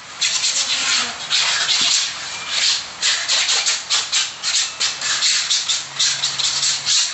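Hand sanding of a puttied concrete wall with sandpaper: a run of rough rasping back-and-forth strokes, shorter and quicker in the second half.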